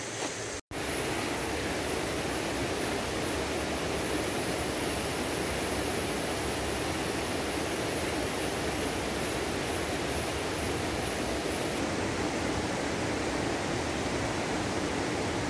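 Tropical forest ambience: a steady rushing hiss under a high, thin, steady insect drone that stops about twelve seconds in.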